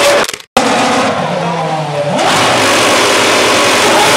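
Renault R28 Formula One car's 2.4-litre V8 engine revving on the spot. The sound cuts out briefly just under half a second in. It comes back at a lower steady pitch, then revs climb sharply about two seconds in and are held high.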